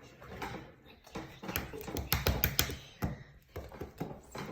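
Irregular clicks, taps and soft sticky noises from hands handling slime and toys, with no steady rhythm.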